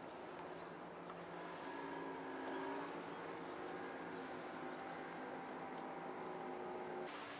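Boat's outboard motor running steadily, a droning hum whose pitch shifts slightly about two seconds in.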